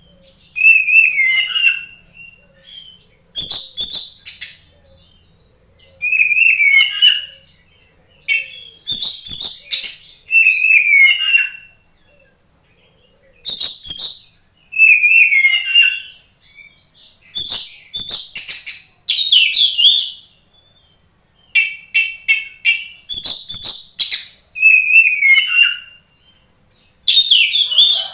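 Oriental magpie-robin (kacer poci) singing loudly in repeated phrases of whistles and chattering notes. Each phrase lasts a second or two, with short pauses between them, and one passage about two-thirds of the way in is a fast run of repeated notes.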